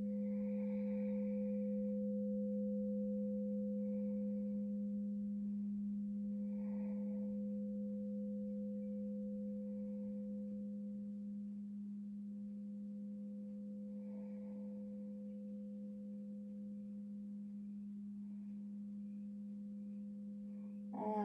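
Crystal singing bowl ringing as one long sustained tone, a low hum with a fainter higher overtone, slowly fading.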